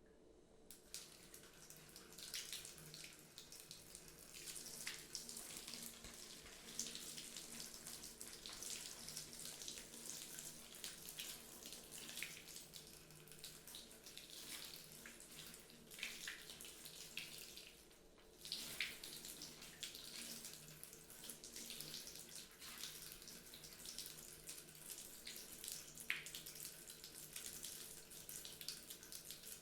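Faint running water splashing steadily, with a brief break about eighteen seconds in.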